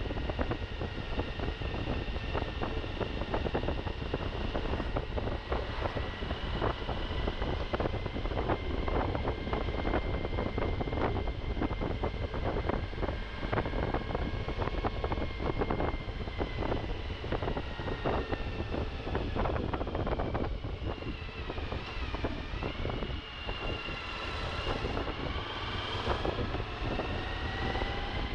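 Suzuki V-Strom motorcycle engine running while riding off road, over a heavy low rumble of wind on the microphone, with many short knocks and rattles throughout. About three-quarters of the way through the engine note dips and then climbs again.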